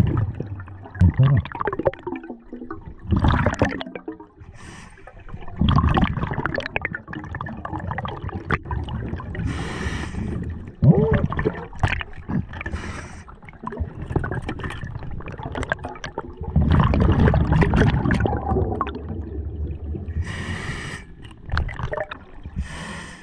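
Scuba diver breathing through a regulator underwater: short hissing inhales repeat several times, each followed by a longer low bubbling rumble as the exhaled air escapes. The longest rumble comes about two-thirds of the way in.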